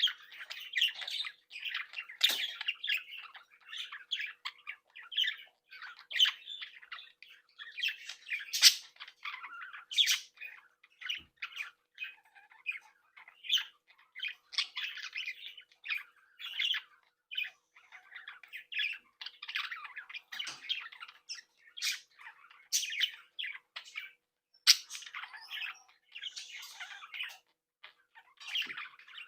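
A flock of budgerigars chattering, warbling and squawking, with many short overlapping calls and frequent sharp louder squawks.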